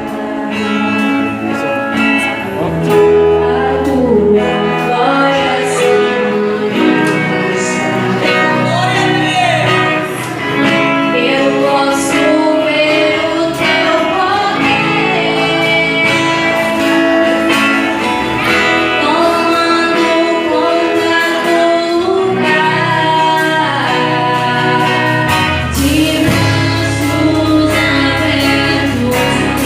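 Gospel worship band music with singing over guitar, bass and a steady low accompaniment, played continuously at a strong level.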